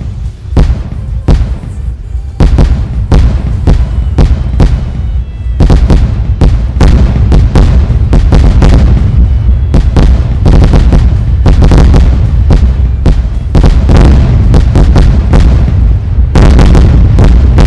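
A fireworks display going off in a rapid, very loud barrage: many sharp bangs and cracks a second over a continuous deep rumble. It starts suddenly and thickens about six seconds in and again near the end.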